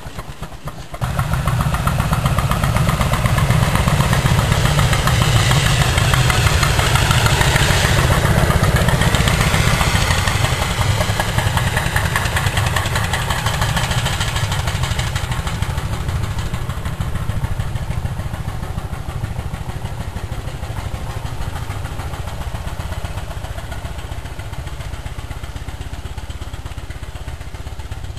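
Steam-powered Land Rover's steam engine running with a fast, even beat as the vehicle drives off. It starts suddenly about a second in, is loudest over the first half and fades steadily as the vehicle pulls away.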